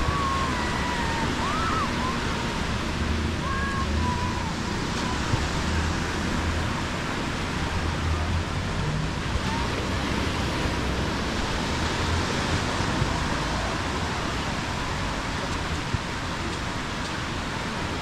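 Steady rush of small waves washing onto a sandy beach, with wind and a low rumble under it. A few short, high gliding whistle-like tones come in the first few seconds.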